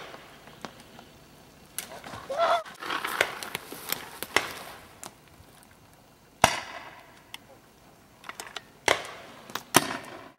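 Several sharp shots at irregular intervals, the loudest a little past six seconds in, with a distant voice calling out between about two and four seconds in.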